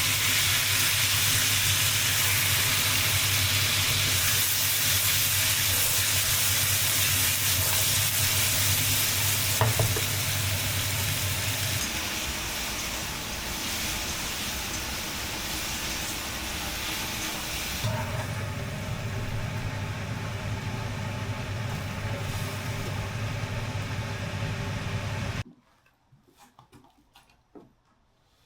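Food sizzling in a hot pan as it is stir-fried, with a steady low hum underneath. The sizzling cuts off abruptly a few seconds before the end, leaving only a few faint knocks.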